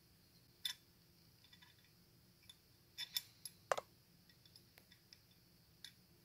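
A few scattered small metallic clicks and clinks as a hand tap in a tap wrench is worked into a screw hole of a metal airsoft V2 gearbox shell, cutting a thread; the sharpest clink, about halfway through, rings briefly.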